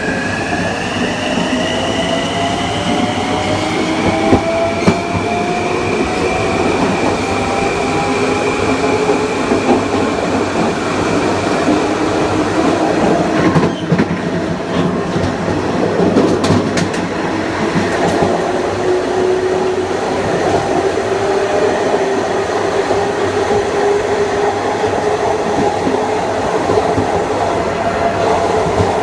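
Long Island Rail Road Kawasaki M9 electric train, heard onboard: its Mitsubishi IGBT-VVVF inverter and AC traction motors whine in several tones that rise in pitch over the first six seconds or so as the train accelerates, then hold steady while it cruises. Steady wheel-on-rail rumble throughout, with a few sharp clicks about halfway through.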